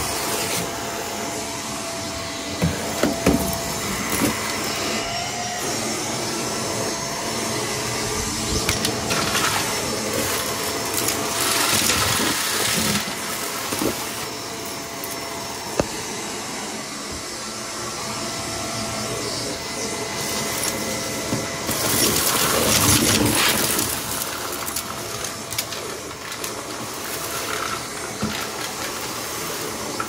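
Hoover vacuum cleaner running continuously while picking up a test mess. Its motor is a steady whir, with two louder stretches, about a third of the way in and again about three quarters through, and a few sharp clicks.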